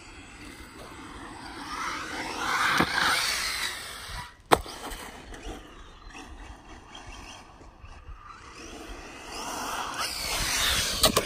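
Electric RC car driving past twice, its whine rising and falling in pitch as it comes near and goes away. There is a sharp knock about four and a half seconds in.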